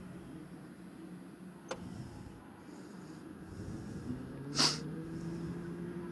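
Electric go-kart rolling slowly on an indoor track: a low rumble, with a single click a little under two seconds in and a short hiss about four and a half seconds in. After the hiss, the kart's electric motor hum comes in steady.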